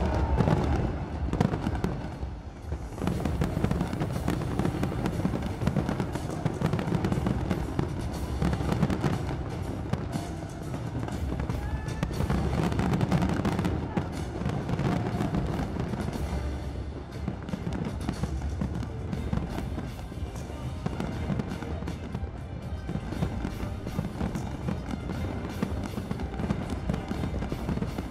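Fireworks display: a dense, continuous stream of bangs and crackling, with music playing alongside.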